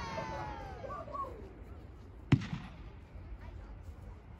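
Brothers 'Juggernaut' 500-gram consumer fireworks cake firing: the previous shot fades out at the start, and a single sharp report comes about two seconds in.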